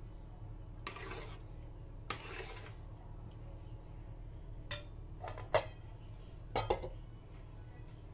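Cookware and utensils being handled: two short scraping sounds, then a few sharp clinks and knocks, over a low steady hum.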